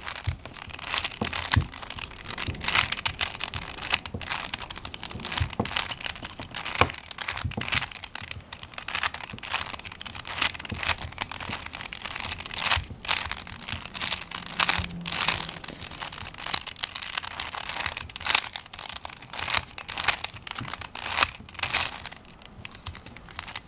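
Plastic Rubik's Cube Twist puzzle being turned quickly by hand to scramble it: a run of irregular clicks and rattles from its twisting layers, thinning out near the end.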